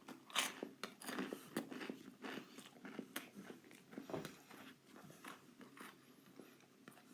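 A person chewing a mouthful of food close to the microphone: faint, irregular crunchy mouth clicks, busiest in the first couple of seconds and thinning out after.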